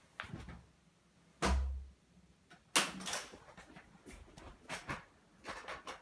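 Scattered knocks and clicks of handling: a dull thump about one and a half seconds in, a sharp click near three seconds in, and a few lighter taps near the end, over a faint steady background.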